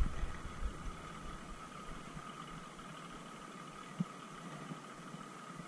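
Faint steady engine-like hum with a thin high tone over light hiss, and one soft tap about four seconds in.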